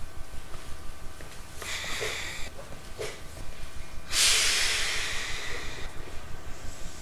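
Hiss of compressed air from the air system of an Ohmi Railway 900 series electric train, heard from inside the car: a short burst, then about four seconds in a louder hiss lasting nearly two seconds. Under it runs a steady low rumble with a regular pulse, with a couple of soft knocks.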